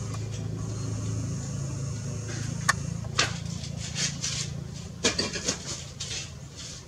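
A steady low motor-like hum that fades out after about five seconds, with a few sharp clicks and taps in the second half, the loudest a single crack a little under three seconds in.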